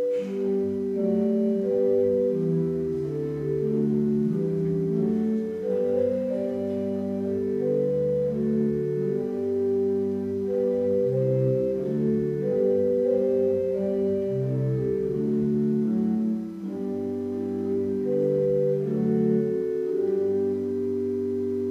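Church organ playing an introit: slow, sustained chords moving over a low bass line, settling onto a held chord near the end.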